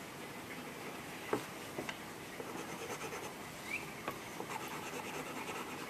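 Pencil scratching on paper as a picture is coloured in, with a few light taps of the pencil.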